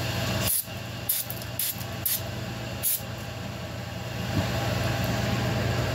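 Aerosol brake cleaner sprayed in about five short hissing blasts in the first three seconds, cleaning oil and chips off a thread tap, over a steady low shop hum.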